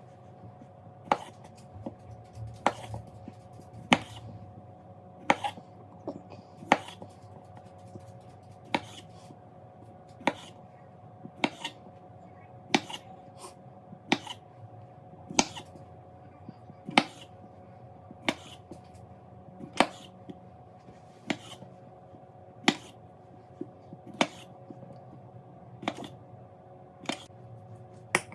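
Kitchen knife knocking on a cutting board while black seedless grapes are cut into quarters: single sharp chops, one about every second and a half, over a faint steady hum.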